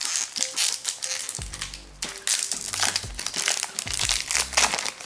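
Foil trading-card pack wrapper crinkling and crackling in bursts as it is torn open and the cards are pulled out, over quiet background music.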